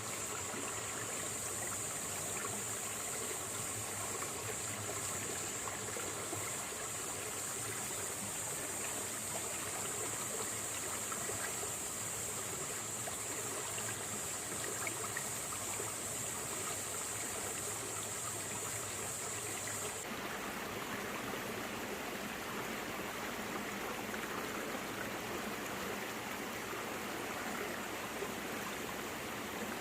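Small stream running over rocks and stones, a steady babbling rush of water. About two-thirds of the way through the sound changes abruptly and a steady high hiss drops out.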